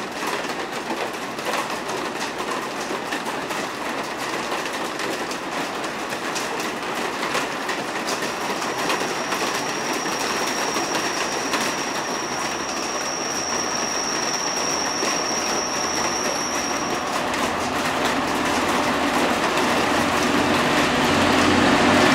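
Class 66 diesel locomotive and its water train approaching, growing steadily louder over a steady hiss of rain. A thin, high, steady whine holds for several seconds in the middle. The low throb of the locomotive's two-stroke V12 engine comes in near the end as it draws close.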